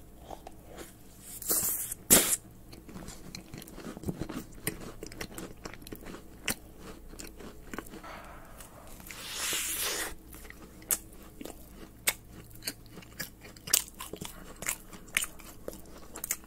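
Close-miked eating of a cream-filled red velvet macaron: one sharp, crisp bite about two seconds in, the loudest sound, followed by chewing with many small mouth clicks.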